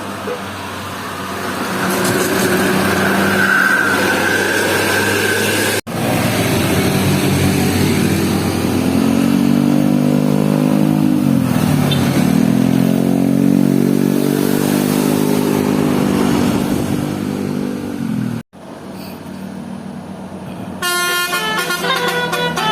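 Bus telolet horn of the 'basuri' type sounding a long, loud multi-tone call whose pitch swoops down and back up midway, after a few seconds of road and engine noise. Near the end a second horn melody starts in short stepped notes.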